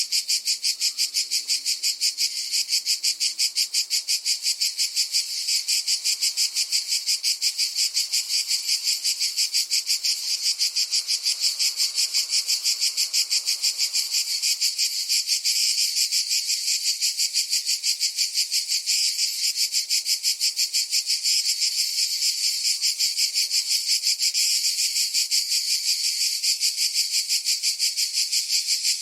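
Cicada chorus: a steady, high-pitched buzz made of rapid, even pulses that keeps going without a break.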